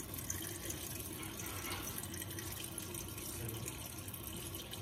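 Kitchen tap running in a steady stream.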